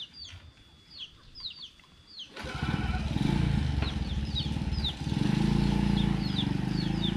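A motorcycle engine starts suddenly about two seconds in and then runs steadily, dipping briefly and picking up again. A small bird chirps repeatedly throughout.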